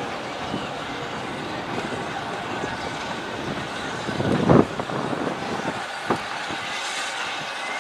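Steam tank locomotive drifting slowly into a station with its coaches, a steady rumbling run with a short loud knock about halfway through and a smaller one a second and a half later.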